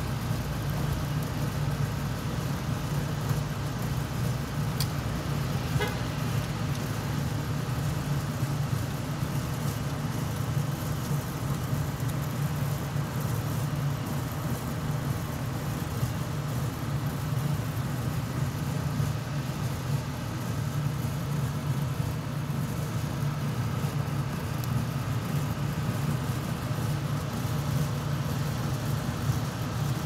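Steady low hum of city background noise, even throughout.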